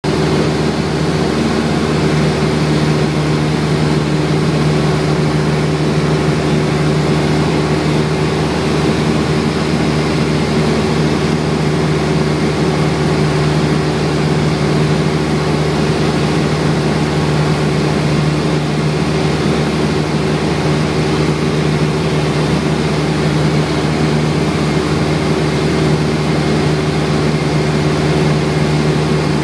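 Cessna 172 Skyhawk II's four-cylinder Lycoming O-320 engine and propeller running steadily in flight, heard inside the cockpit: an even hum with a rushing hiss over it.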